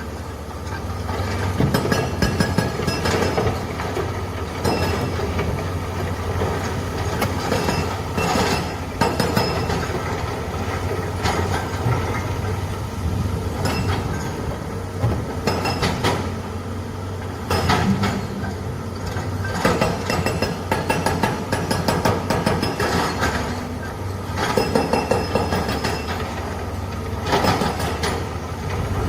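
Heavy machinery running steadily with a low engine drone, and frequent metallic clanks and knocks throughout.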